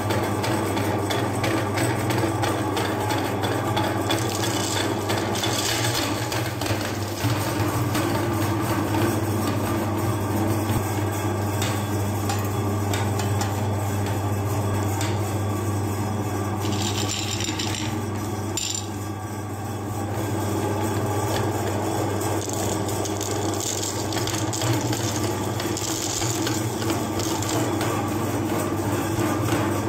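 Electric meat grinder running steadily over a constant low motor hum, its auger crushing hard sugar-coated candies with a continuous crunching, rasping rattle.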